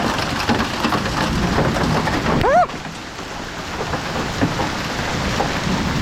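Hailstones and heavy rain pelting down, a dense clatter of countless small hits. A brief shouted cry comes about two and a half seconds in.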